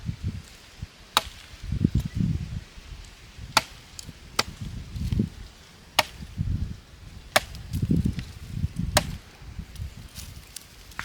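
Repeated chopping: about six sharp cracks one to two seconds apart, with dull low thuds and rustling between the strokes.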